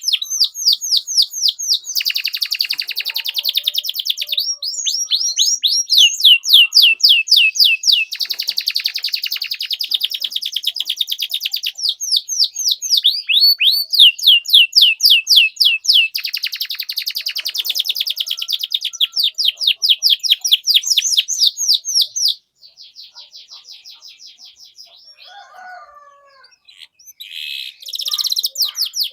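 Domestic canary singing: long phrases of rapid, repeated high chirping trills, one after another. The loud song breaks off about three-quarters of the way through, leaving a fainter trill and a few softer calls near the end.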